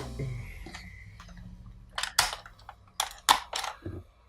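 Several sharp clicks and knocks of plastic toy game pieces being handled, about two to three and a half seconds in, after a low hum fades out in the first second or two.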